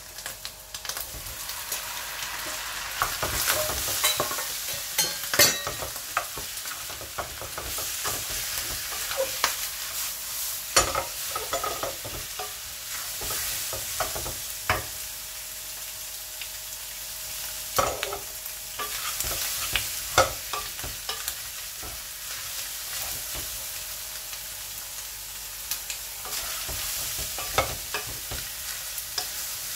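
Raw shrimps sizzling in hot oil in a nonstick wok, the sizzle swelling a few seconds in as they hit the oil. A wooden spatula stirs them throughout, scraping and knocking against the pan.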